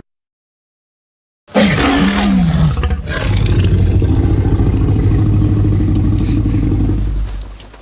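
Monster roar sound effect. After about a second and a half of silence, a short cry dips and then rises in pitch. It runs into a long, loud roar over a steady low drone, which fades out near the end.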